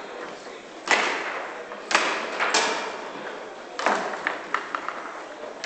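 Foosball table in play: the hard ball and rods knocking sharply four times, roughly a second apart, each knock ringing briefly in the table, followed by a few lighter clicks near the end.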